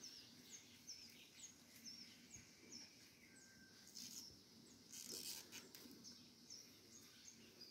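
Near silence with a faint, high, short falling chirp repeated about twice a second, a small bird calling. Around the middle come a couple of faint rustles from bundles of taro stolons being handled.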